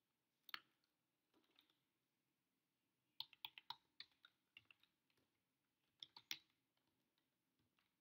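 Computer keyboard being typed on in short bursts: faint separate key clicks in small runs with pauses of near silence between.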